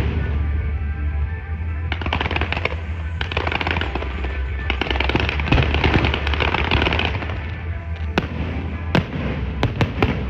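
Fireworks going off: a dense rapid crackling for several seconds, then a few single sharp bangs near the end, over background music.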